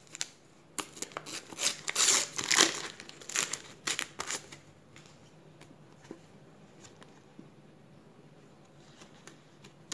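Sticker packet wrapper crinkling and rustling as it is handled, in a run of bursts lasting about four seconds, then only a few faint ticks.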